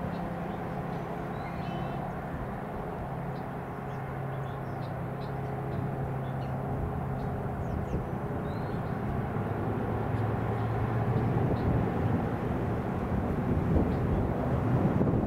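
A steady low drone of distant engine noise, getting louder over the last few seconds, with a few faint high bird chirps over it.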